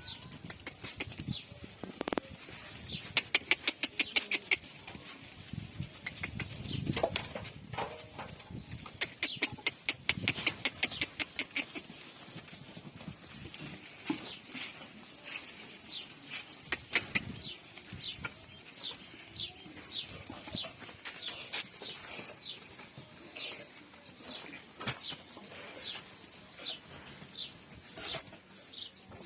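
Farmyard animal sounds: a bird chirping over and over in short, high, falling notes, and a few lower animal calls such as goats bleating. Two loud bursts of rapid clicks, one early on and one about a third of the way in, are the loudest sounds.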